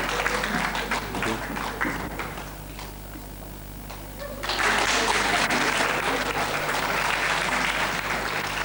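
Audience applauding in a large hall: the clapping thins out after about two and a half seconds, then swells up loudly again about four and a half seconds in.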